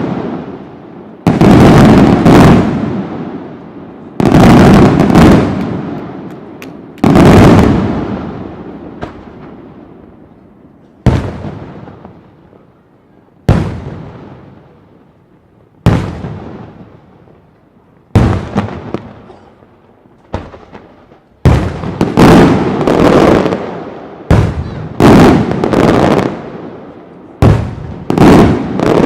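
Large aerial firework shells bursting one after another, each a sudden loud bang followed by a long rolling echo that fades over a couple of seconds. The bangs come every two to three seconds at first, then in quicker succession in the second half.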